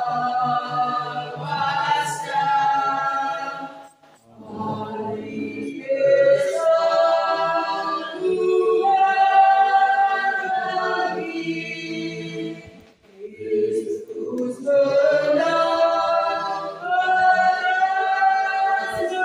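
A choir singing a hymn in long held phrases, with two short breaks between phrases, about four seconds in and again near thirteen seconds.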